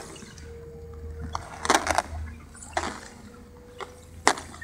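PWT Wedge-IT hot-wedge welder running along a waterproofing membrane seam: a steady low motor hum with a faint steady whine, broken by several sharp irregular clicks or crackles.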